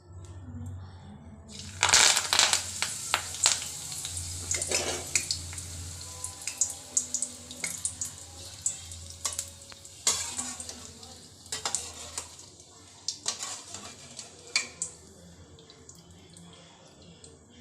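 Kanda (elephant foot yam) slices frying in hot oil: the sizzling starts suddenly about two seconds in and slowly dies down, with frequent clinks of a utensil against the pan.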